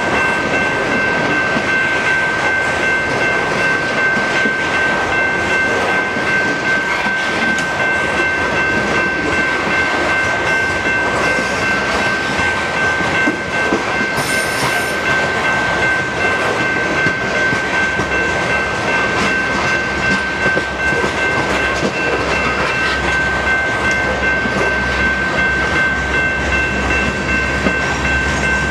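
A BNSF coal train's hopper cars rolling steadily past, wheels running on the rails, with a steady high-pitched ringing tone throughout. About three quarters of the way through, a low rumble grows as the locomotive at the rear of the train comes closer.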